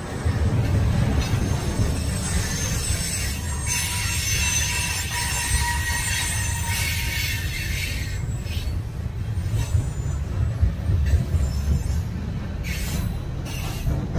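Norfolk Southern freight cars rolling past close by, with a steady low rumble of wheels on rail. High wheel squeal runs through the first half and dies out about seven seconds in. A few sharp clanks come in the second half.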